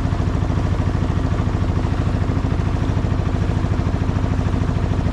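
Small boat's motor running steadily at an even speed, with a fast, regular low pulse.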